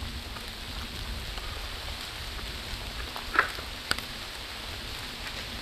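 Steady hiss of light rain, with two short sharp clicks about half a second apart a little past halfway, as the rubber-powered captive-bolt hammer is cocked and latches.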